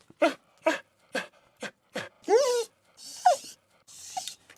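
A puppy whimpering and crying: a run of short, quick whimpers about twice a second, then a longer whine that falls in pitch about two and a half seconds in, followed by a couple more whimpers.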